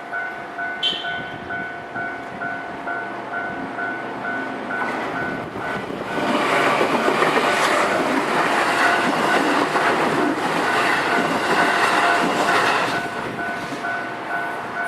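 Level-crossing warning bell ringing in a steady repeating electronic ding-ding. A train passes over the crossing from about six seconds in until about thirteen, its wheel-and-rail noise the loudest part and partly covering the bell. A brief high squeal sounds about a second in.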